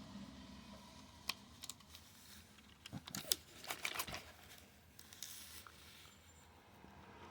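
Light clicks, taps and small scrapes of plastic and metal drill-motor parts being handled as the carbon brushes are fitted back into their holders. They come scattered, busiest in the middle.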